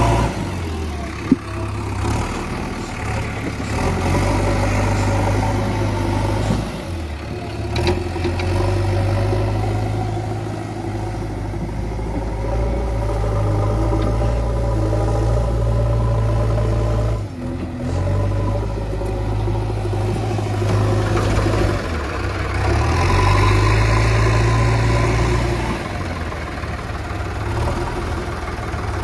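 Diesel engine of a JCB backhoe loader running steadily, its note rising and falling repeatedly as the machine digs and loads mud. There is a single sharp knock about a second in.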